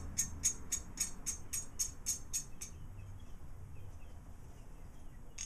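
A nut being run onto a threaded rod, giving a regular metallic ticking at about four clicks a second that stops about two and a half seconds in. A faint low hum remains after it.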